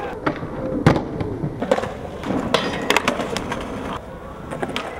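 Skateboard wheels rolling on concrete, broken by a run of sharp clacks and slaps of the board and trucks hitting down. The loudest hit comes about a second in, and more follow at uneven intervals.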